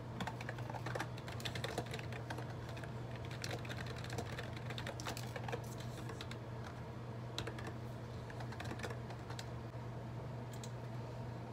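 Typing on a computer keyboard: irregular runs of key clicks, thinning out in the second half, over a steady low hum.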